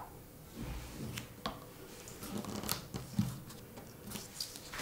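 Quiet handling noises: about half a dozen soft clicks and knocks over a faint rustle, as a painting canvas is tilted and shifted on a plastic-covered table to help poured acrylic paint flow off one side.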